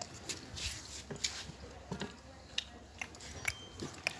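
A mare chewing fodder at a manger: soft, irregular crunches and clicks, a few each second.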